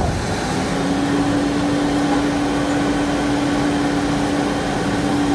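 Komatsu heavy machine's diesel engine held at high, steady revs under heavy load, with a constant whine setting in about half a second in: the machine is straining in mud with its wheels spinning.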